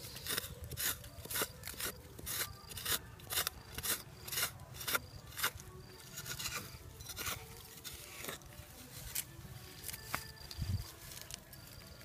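A long rod jabbed repeatedly into dry, sandy soil to dig a hole, each stroke a short gritty scrape of earth, about two a second at first, then slower and more irregular.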